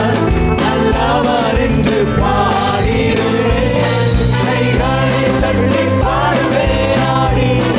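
Tamil Christian worship song: singing over band accompaniment with a steady drum beat.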